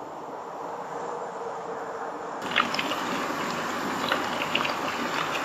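Water trickling and splashing; about two and a half seconds in it turns crisper, with many small crackles and splashes.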